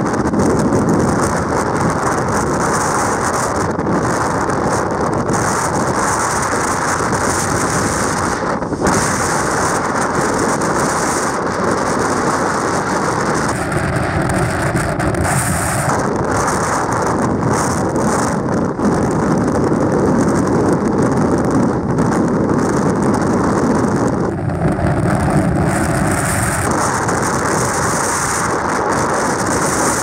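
Typhoon-force wind buffeting the microphone over the steady noise of heavy surf breaking along a rocky shore.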